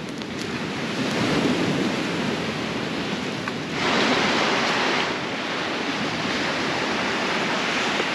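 Ocean waves washing onto the shore in a steady noisy wash, swelling louder about a second in and again about four seconds in.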